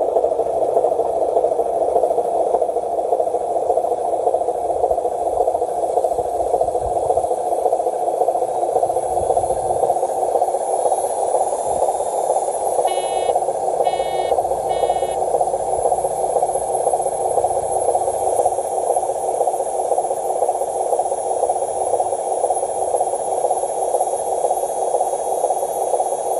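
Radio-controlled model tractor-trailer truck's electric motor and gears whirring steadily as it drives. Three short high beeps sound about halfway through.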